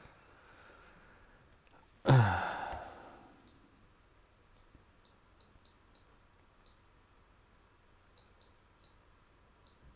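A loud sigh about two seconds in, falling in pitch and trailing off over about a second and a half. Computer mouse clicks scattered through the second half.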